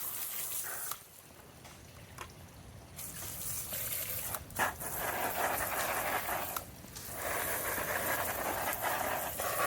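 Running water rinsing out a robotic pool cleaner's filter basket. It eases off for about two seconds near the start, then runs again with a couple of brief breaks.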